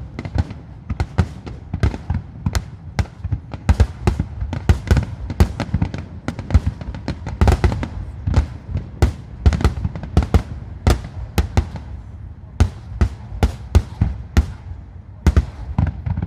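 Starmine fireworks barrage: aerial shells bursting in quick succession, several sharp bangs a second over a continuous low rumble.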